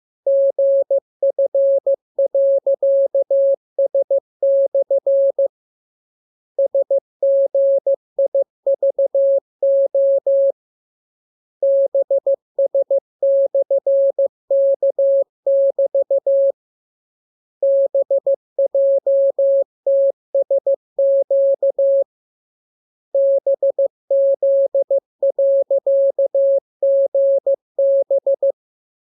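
Morse code practice tone: a single steady beep keyed on and off in dots and dashes, sent in runs of several seconds with pauses of about a second between them.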